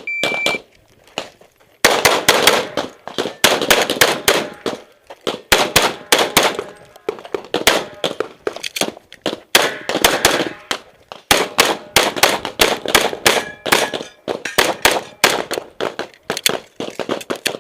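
A shot timer's single beep, then after about two seconds a rapid string of pistol shots from a .38 Super competition race gun, fired in quick bunches with short gaps between them and brief metallic ringing here and there.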